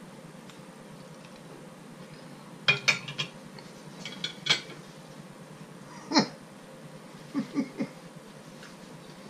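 Metal fork and knife clinking against a ceramic plate, several sharp clicks in the first half. In the second half come a few short squeak-like sounds that fall in pitch: one about six seconds in, then three close together.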